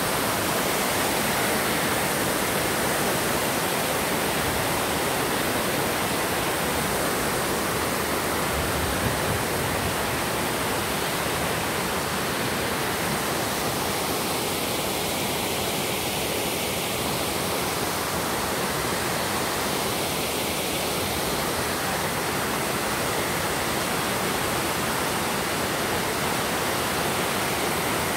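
Steady rushing of water flowing over rocks in a shallow river, an even hiss that holds the same level throughout.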